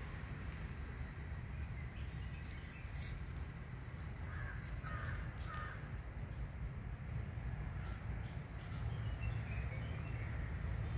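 Three short bird calls, caw-like, about half a second apart near the middle, over a low rumble of the handheld microphone and a brief rustling of plant stems being handled.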